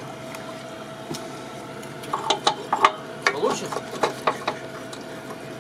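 Scattered metal clicks and clinks of a recovery hook and rigging being handled, starting about two seconds in, over a steady hum.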